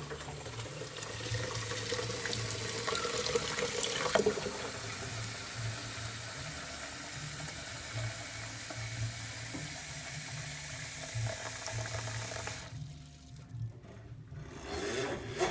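Water running from a pull-out kitchen sink faucet into an espresso machine's water tank, shutting off about 13 seconds in.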